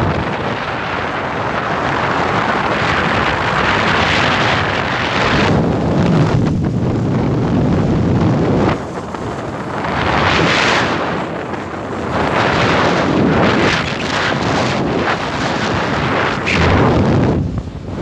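Heavy wind buffeting the microphone in gusts, as on a moving motorcycle taxi, with a brief lull about nine seconds in.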